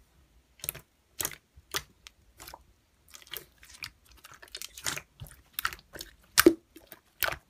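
Clear slime being pressed and squished by hand, giving irregular sticky clicks and crackling pops.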